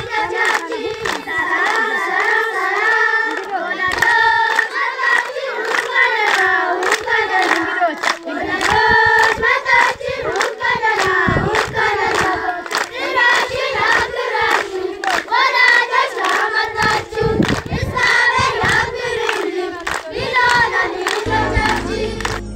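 A group of children singing a welcome song together in Amharic, clapping their hands in time with the song. About a second before the end it cuts to saxophone music.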